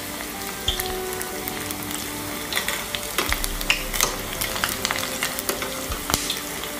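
Battered okra frying in hot oil in a small stainless steel saucepan: a steady sizzle broken by frequent sharp pops and crackles. Metal tongs clink and scrape against the pan as the pieces are turned.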